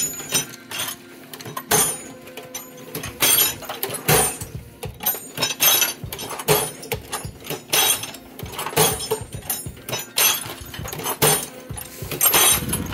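Metal hand tools (wrenches, sockets, ratchets) clinking and clattering in steel tool chest drawers as the drawers are pulled open and pushed shut again and again. The drawers are being worked to test whether the tools slide on their new rubber mat liner.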